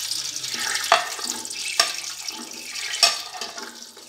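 Hot oil sizzling in a steel pot as dry fruits (almonds, pistachios, raisins) are tipped in, with three sharp clatters about a second apart. The sizzle dies down near the end.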